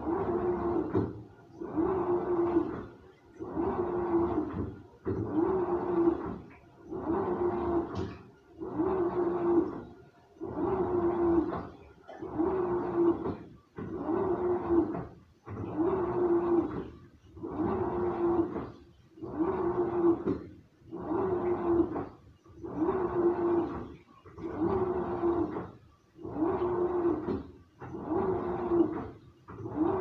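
Samsung washing machine running a wash, its drum turning in short repeated strokes about every second and three quarters. Each stroke brings a steady motor hum with the swish of the wet load, and short pauses fall between strokes.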